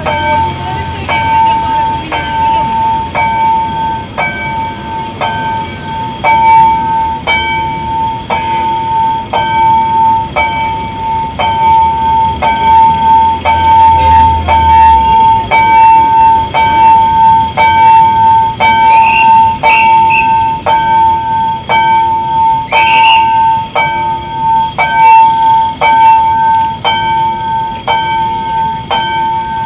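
A railroad level-crossing warning bell rings steadily, struck a little more than once a second. Under it the low rumble of a train stops about halfway.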